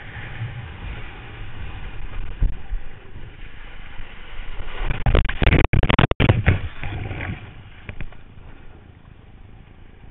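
Wind buffeting the microphone of a camera mounted on a windsurf rig, over water rushing past the board. About five seconds in, spray and water crash over the camera in a run of loud splashes lasting a second or two, after which the rushing noise is quieter.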